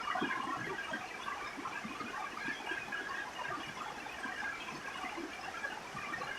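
Rain falling steadily on a roof: a dense, even patter of many small drops, with softer low knocks of heavier drops mixed in.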